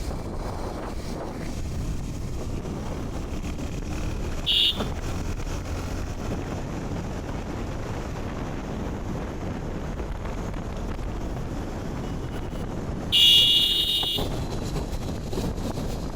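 Bajaj Pulsar single-cylinder motorcycle engine running while the bike is ridden, with wind rushing over the microphone; the engine has a new timing chain and balancer fitted. A short high beep sounds about four and a half seconds in, and a louder one lasting about a second near the end.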